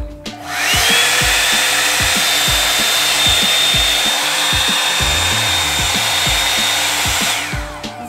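Revlon One-Step hair dryer brush running on its cold setting. Its motor whine rises to a steady pitch within about half a second of switching on and holds with a steady rush of air, then winds down and stops near the end.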